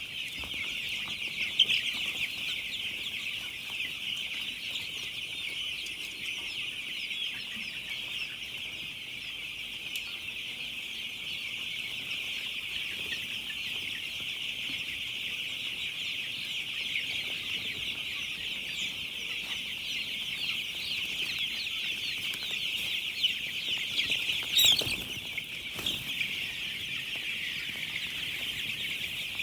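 A large flock of broiler chickens in a poultry house, many birds cheeping and chirping at once in a constant high chorus. A couple of brief knocks near the end.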